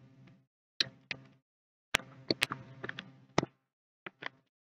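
Irregular sharp clicks and taps, about eight in all, of computer input while selecting an on-screen annotation tool and starting to write with it.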